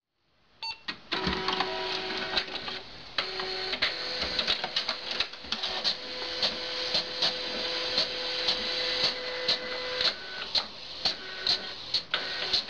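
Inkjet fax printer printing: its motors whir in a steady run of tones, with regular clicks of the print mechanism about two to three times a second.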